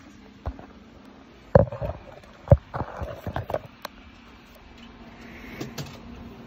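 A handful of short knocks and thumps from handling, the two loudest about one and a half and two and a half seconds in, with a few lighter taps after them, over a faint steady hum.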